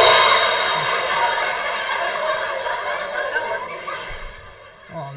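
Drum-kit cymbal struck hard and ringing out, fading away over about four seconds: the punchline sting of a drum rimshot after a joke.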